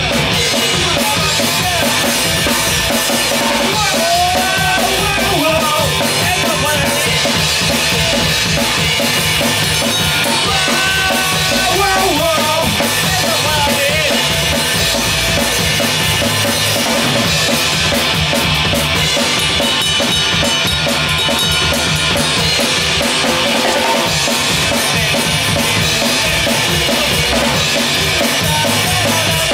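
A rock band playing live: electric guitar, electric bass and a Pearl drum kit with steady bass drum and snare, with a man singing lead vocals over it.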